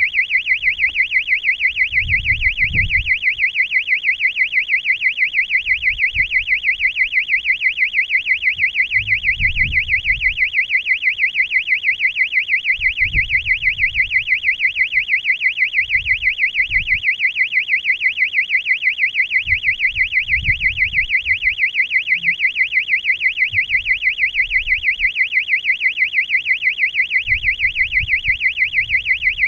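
Electronic alarm beeper on a high-altitude balloon payload: a loud, high-pitched tone pulsing rapidly and evenly, several beeps a second, with faint low rumbles now and then.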